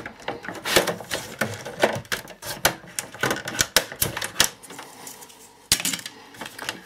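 Plastic casing of a satellite set-top box clicking and creaking as it is flexed and its clips are popped free from the metal chassis: a string of irregular sharp clicks, a few of them loud.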